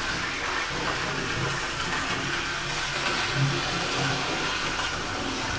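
Hornby Schools class OO gauge model locomotive running on test track: a steady whirring rattle of its motor, gears and wheels on the rails. Its driving axle has just been reseated in the chassis and its pickups cleaned.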